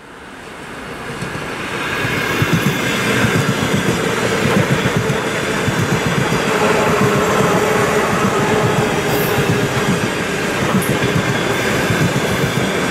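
VL11 DC electric locomotive hauling a container freight train as it approaches: a steady rumble and clatter of wheels on the rails, with a steady tone running through it. It fades in over the first two seconds.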